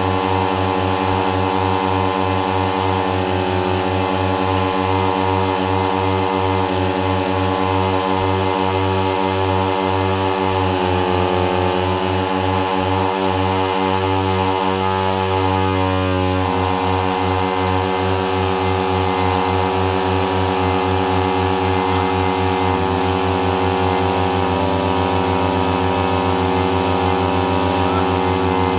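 Two 30cc two-stroke brush-cutter engines, a Mitsubishi TU33 and a Stihl FR3001, coupled shaft to shaft and running at full throttle, each straining against the other. The loud, steady engine sound shifts slightly in pitch a few times.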